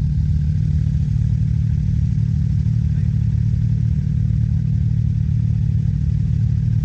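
Sport quad ATV engine idling steadily at close range.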